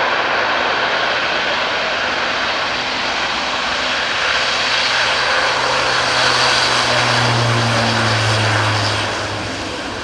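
Airbus A400M's four turboprop engines at high power on takeoff: a loud, steady propeller-and-engine roar with a low hum that swells and drops slightly in pitch about seven to nine seconds in, then starts to fade near the end.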